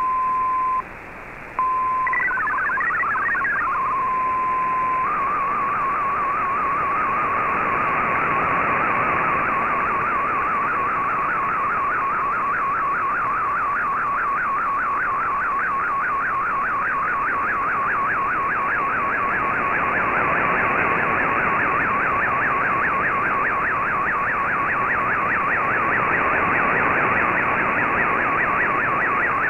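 Shortwave Radiogram digital broadcast through a shortwave receiver's speaker. A steady single tone with a short break gives way to a brief burst of stepping MFSK tones and another steady tone. From about five seconds in, a fast continuous warble carries an Fldigi MFSK picture, over a hiss of shortwave static.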